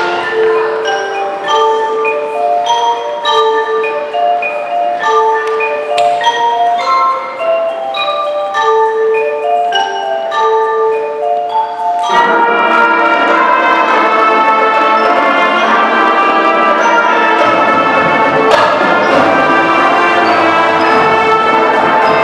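Marching band music: a melody on marimba and other mallet keyboards, then about twelve seconds in the full band comes in with brass and a low bass line, louder and fuller.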